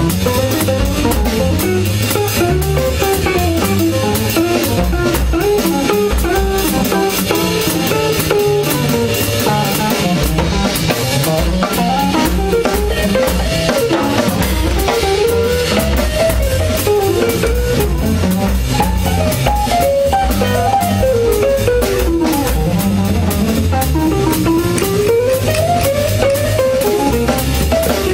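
Live jazz combo: a hollow-body electric guitar plays a fast bebop solo of running single-note lines over upright double bass and a drum kit with steady cymbal time.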